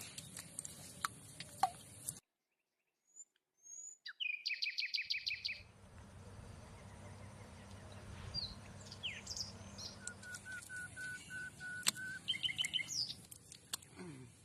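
Small birds chirping and calling, including fast runs of repeated high notes, over a low steady background noise. The sound cuts out completely for about two seconds near the start.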